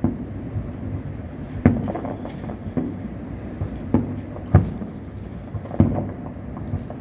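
Fireworks shells bursting at a distance: a series of dull booms that each fade off, the loudest about four and a half seconds in.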